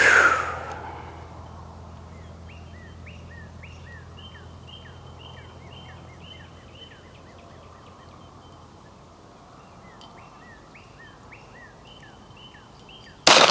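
A single 9mm shot from a SIG P210 pistol at the start, echoing away over about a second. Then a bird calls over and over with short falling chirps. Near the end a steel target clangs loudly and rings on, the sound of a hit at 100 yards.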